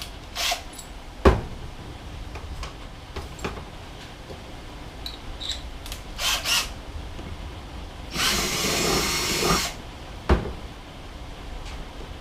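Power drill running for about a second and a half, boring a hole for a battery terminal, with short blips of the drill and several sharp clicks and knocks of handling around it.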